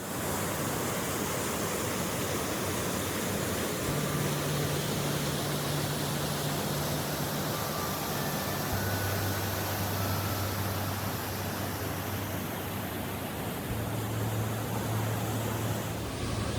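Steady rush of whitewater on a creek, an even noise with no strokes or breaks.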